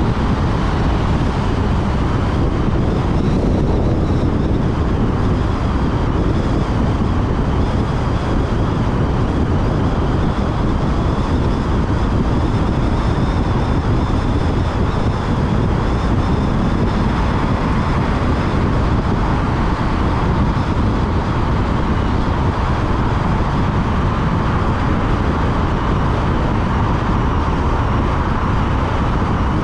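Steady road and tyre noise of a car cruising through a motorway tunnel, heard from inside the car.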